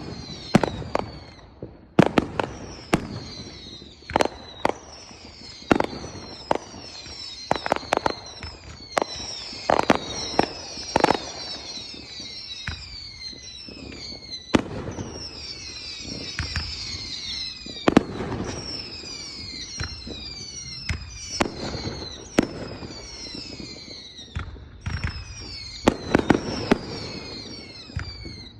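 Fireworks going off in a dense barrage: sharp bangs, many in quick succession, over many overlapping high whistles that fall in pitch. The single loudest bang comes about two-thirds of the way through.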